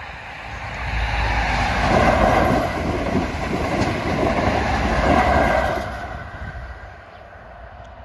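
A GWR passenger train passing at speed over a level crossing, with the rumble and clatter of its wheels on the rails. The sound builds about a second in, stays loud through the middle and fades near the end as the train moves away.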